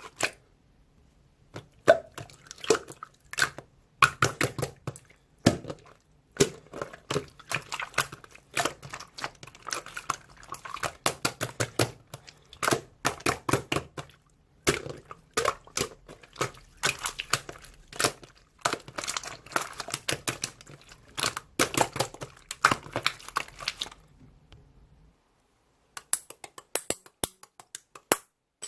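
Slime being squeezed and kneaded by hand: a dense run of crackles and small pops that starts about two seconds in, stops for about two seconds near the end, then starts again.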